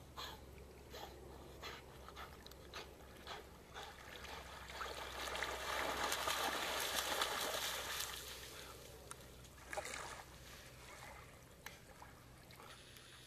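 A large black dog swimming, with a short sound about every two-thirds of a second as it paddles, then a loud rush of splashing as it bounds through shallow water from about five to eight seconds in. After that the water noise dies down, with a few scattered small splashes.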